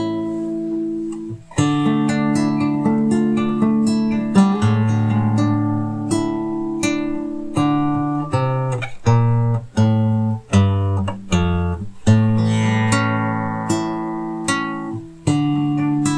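Classical nylon-string guitar played fingerstyle in an instrumental passage: plucked chords with ringing bass notes and a few quick strums, the chord changing every second or so.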